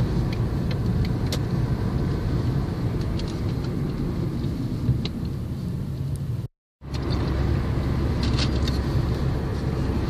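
Steady low rumble of a car's engine and tyres on the road, heard from inside the cabin while driving, with a few faint clicks. The sound cuts out completely for a split second about six and a half seconds in.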